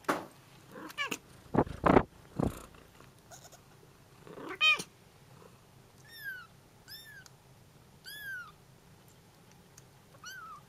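Young Bengal kittens mewing for their mother: a run of about five thin, high-pitched mews, each arching up and then down, over the second half. A few loud bumps and knocks come in the first couple of seconds.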